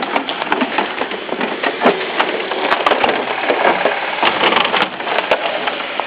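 Footsteps crunching through deep snow, a dense crackling of many small crunches with no pause.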